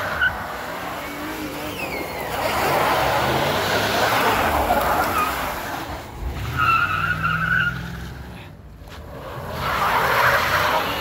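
Dodge Durango V8 and Infiniti QX4 V6 engines revving hard through rocking-horse burnouts, with tyres spinning and squealing on wet pavement. A sharper, high tyre squeal lasts about a second past the middle. The sound dips briefly before building up again near the end.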